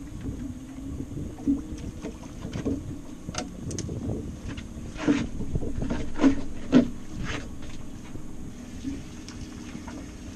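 Small waves slapping and knocking against a boat hull, with wind buffeting the microphone; a few louder slaps come about five to seven seconds in.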